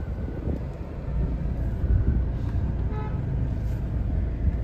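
Car engine and road rumble heard from inside the cabin of a moving car, with a short horn toot about three seconds in.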